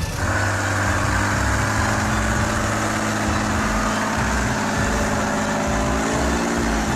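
Heavy truck engine sound effect running steadily, a low rumble under an even hum. It starts abruptly and cuts off suddenly near the end.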